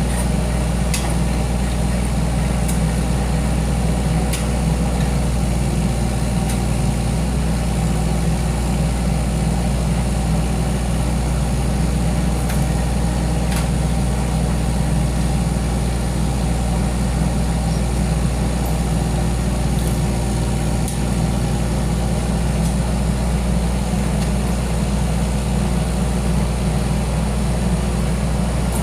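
Heavy engine idling steadily with a deep, even hum, with a few faint clicks over it.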